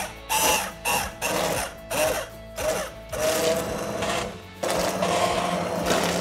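Handheld immersion blender puréeing hot, thick red lentil soup in a pot. The motor starts and stops in short bursts at first, then runs steadily with a whine for the last few seconds.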